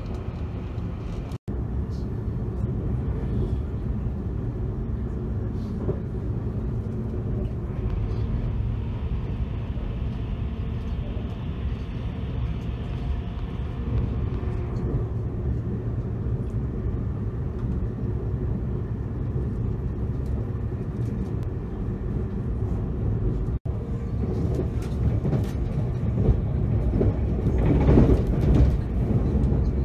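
Inside an E257 series limited express train running at speed: a steady low rumble of wheels on rail. Near the end it gets louder and clatters as the train passes through a station without stopping.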